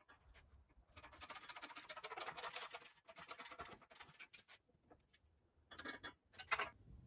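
Rapid, dry scratching for about three seconds, followed by two short scrapes near the end.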